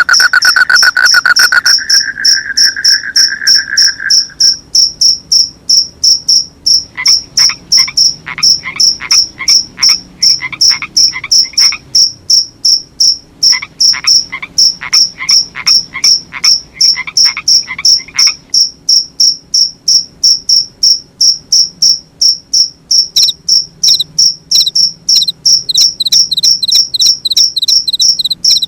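Crickets chirping in a steady, quick, evenly spaced pulse, with a second continuous insect trill that stops about four seconds in. Twice, a frog joins with a run of quick croaks lasting about five seconds each.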